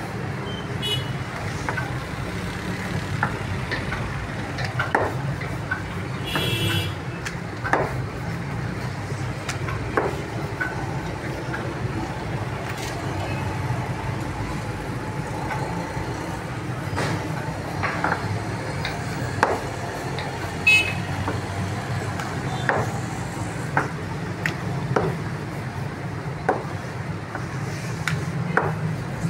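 Steady street traffic rumble, with irregular sharp knocks every second or two from a wooden rolling pin and hands on a marble slab as dough is worked. A short high-pitched tone sounds about six and a half seconds in.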